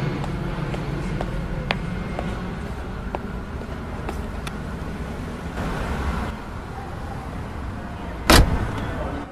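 Steady rumble of car engines and traffic, with scattered light knocks and clicks as suitcases are loaded into a car boot, then one sharp, loud slam near the end as the boot lid is shut.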